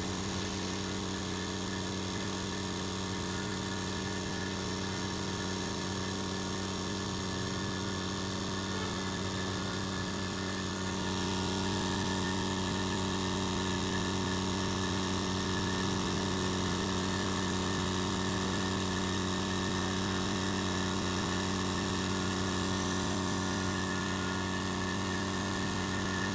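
BAW 2HP 30-litre oil-free air compressor running with a steady, even hum. It gets a little louder and brighter about eleven seconds in.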